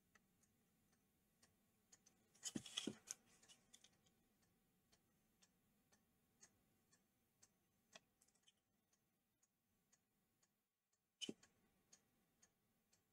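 Near silence with faint room tone, broken by a few light clicks about two and a half seconds in and a single one near the end, as a flux syringe and small circuit board are handled on a work mat.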